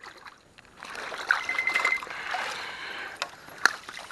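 Water sloshing and trickling as a person moves through shallow swamp water, with a few sharp clicks and a brief high chirp about a second and a half in.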